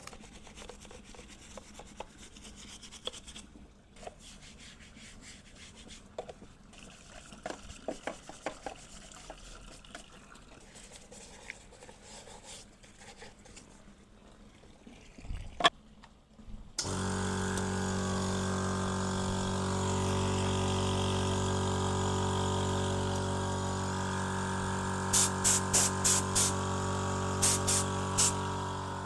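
Soft rubbing and scraping as the wet brushcutter is cleaned. About seventeen seconds in, a small portable air compressor starts suddenly and runs steadily. Near the end an air blow gun gives two runs of short, sharp hissing blasts.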